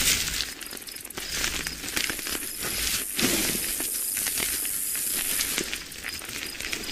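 Dung beetle sounds: many small irregular clicks and scratchy crackles over a steady hiss.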